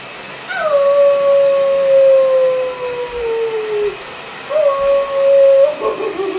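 German Shepherd howling at a hair dryer held toward its face. One long howl starts about half a second in, holds steady and then slides slowly down in pitch. A second, shorter howl comes near the end.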